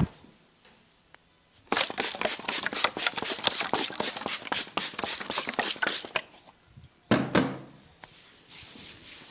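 Fingers rapidly scratching and tapping on a person's head and hair during a head massage: a dense, crackly run of quick strikes lasting about four seconds. A single thump follows about seven seconds in, then a softer steady rustle near the end.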